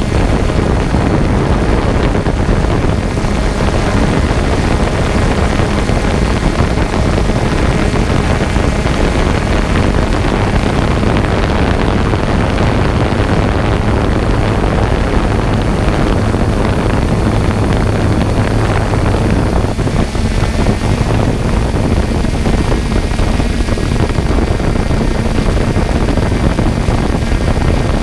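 Quadcopter drone's motors and propellers buzzing steadily in flight, with a low hum and wind rushing over the GoPro's microphone.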